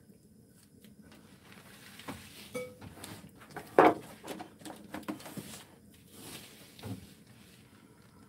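Black bean paste being squeezed from a plastic pouch into a frying pan: soft plastic crinkling and squelching with a run of small clicks and knocks. The loudest knock comes about four seconds in.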